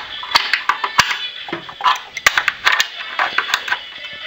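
Adjustable wrench on steel nuts and bolts: a run of sharp, irregular metal clinks as the nuts are worked.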